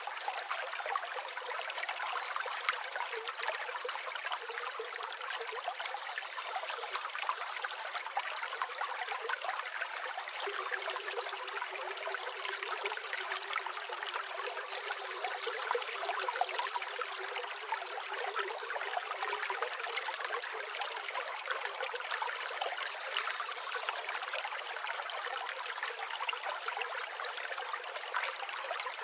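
River water flowing steadily: an even, unbroken rushing babble with no low rumble.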